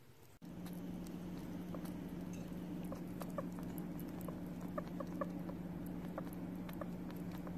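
Sugar glider eating soft food from a bowl: small, quick, puku-puku clicks from its mouth as it licks and chews, more frequent from about three seconds in, over a steady low hum.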